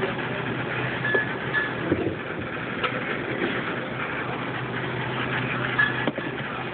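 Commercial countertop blender motor running steadily while blending a smoothie, with a few light clicks and knocks from the jar.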